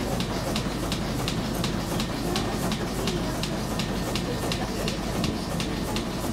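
Steamship's engine running steadily, a low rumble with a regular mechanical clicking about four times a second.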